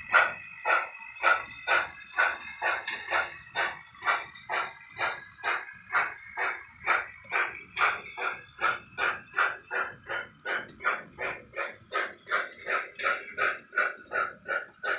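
Digital steam sound from an HO scale model locomotive's Soundtraxx Tsunami2 decoder playing through its small onboard speaker: exhaust chuffs in a steady rhythm, about three a second, growing fainter as the engine runs away.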